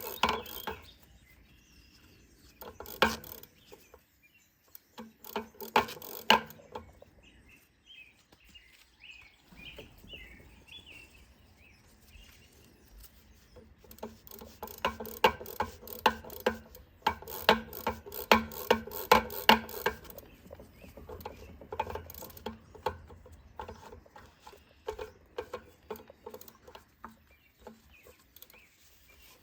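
Scattered clicks and clatter of tools and bike parts being handled during a bicycle overhaul. A quick run of clicks comes about halfway through.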